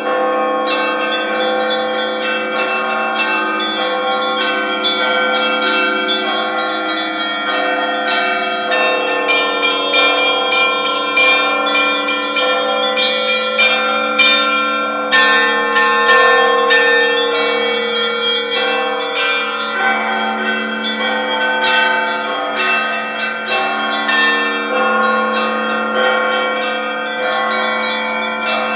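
Russian church bells ringing together (kolokolny zvon): many bells of different pitches struck in a quick, continuous rhythm, with the deeper bells' tones ringing on beneath rapid strikes of the smaller bells.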